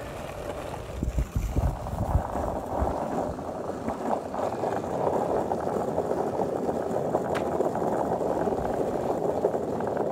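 Longboard urethane wheels rolling on rough asphalt, a steady gritty rumble, with a few low thumps in the first couple of seconds.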